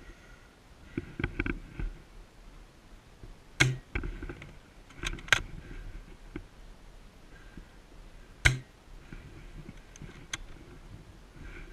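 Airsoft guns firing single shots: a few sharp cracks spaced irregularly, two of them in quick succession, with softer clicks and rustling in between.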